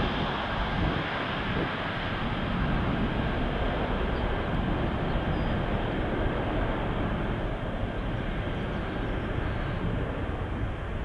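Boeing 747-400 freighter's four jet engines at takeoff thrust as it lifts off and climbs away: a dense, steady rumbling noise that slowly fades as the aircraft gains height.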